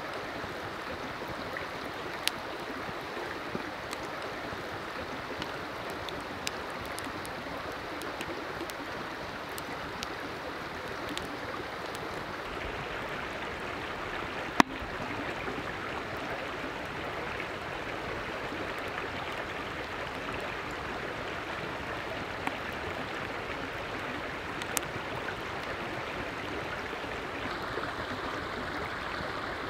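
Creek water running steadily, with scattered sharp clicks or pops over it, the loudest about halfway through.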